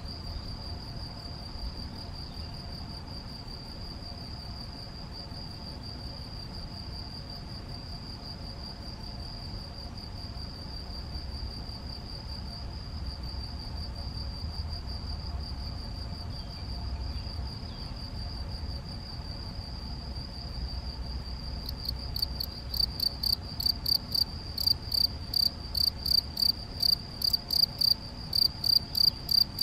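Male field cricket (Gryllus campestris) stridulating at its burrow entrance: after about twenty seconds it starts its calling song, loud, clear chirps at about three a second. Before that, only a faint, steady cricket trill at the same pitch.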